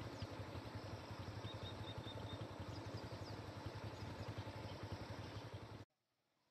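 Steady, low hum of a vehicle engine under roadside background noise, with a few faint bird chirps about a second and a half in; the sound cuts off abruptly near the end.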